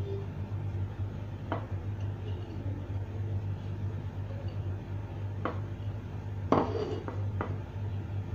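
Tomato slices being laid by hand into a glass baking dish: a few short knocks and clinks against the glass, four in all, the loudest about six and a half seconds in, over a steady low hum.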